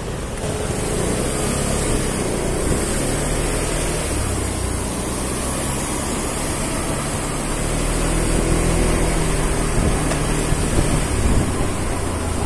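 Motor scooter riding along a street: its small engine runs under a steady rush of wind over the microphone, growing a little louder about two-thirds of the way in.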